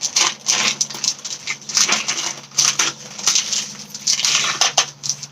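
Plastic bag rustling and crinkling as it is handled, in quick irregular bursts.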